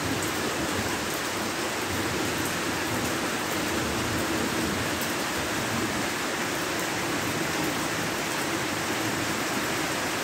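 Heavy rain falling steadily, an even, unbroken rush of rain.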